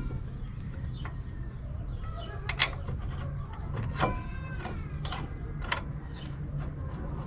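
Hand tools clinking and squeaking against metal while a brake caliper's upper mounting bolt is worked on: a few sharp metallic clicks over a steady low hum.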